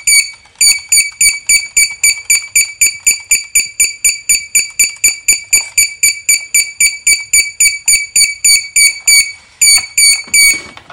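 Arduino security alarm's buzzer sounding a rapid train of short, high-pitched beeps, about four a second, with a brief break near the end before a few more beeps: the alarm set off by an object within the ultrasonic sensor's range.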